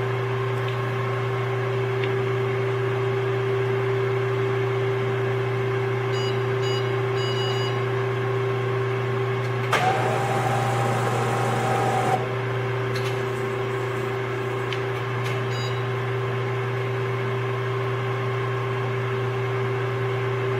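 Duplo 660 hydraulic guillotine paper cutter's motor running with a steady hum, freshly started through a newly replaced main power switch, which is working. About ten seconds in a louder hiss with a higher tone rises over the hum for about two seconds, then stops suddenly.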